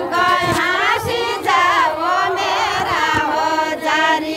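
Women's voices singing a Deuda, a Far-Western Nepali folk song, in sung phrases that rise and fall.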